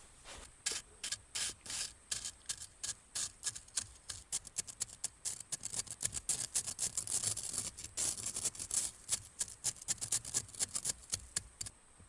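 Rapid hand-worked scraping or rasping strokes, a tool rubbed back and forth on a hard surface. They are sparse at first, come quicker and denser from about four seconds in, and stop shortly before the end.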